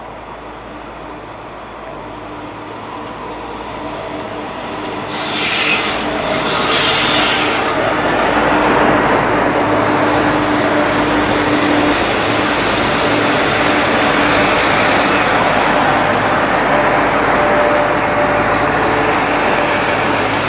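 Trenitalia Minuetto regional train arriving and running past along the platform. It grows louder over the first few seconds into a steady rumble of running gear and wheels on rail, with a hiss about five seconds in.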